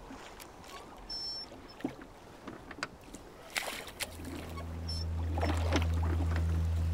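Wooden oar dipping and splashing in water, a few separate strokes. About four seconds in, a low sustained musical drone comes in and becomes the loudest sound.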